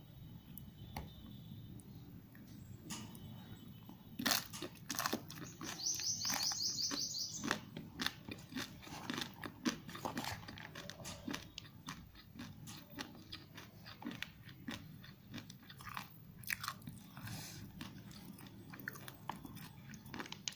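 Close-miked mouth sounds of someone chewing and crunching spicy Wai Wai instant noodles, a quick run of crisp crunches and smacks that is loudest about four to eight seconds in.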